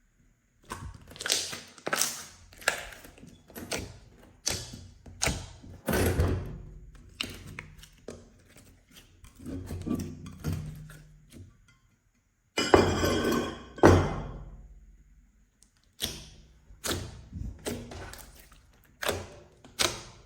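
Slime being squeezed, slapped and worked by hand: a string of irregular wet squishes, slaps and pops about one or two a second, with a longer crackling squelch about two thirds of the way through.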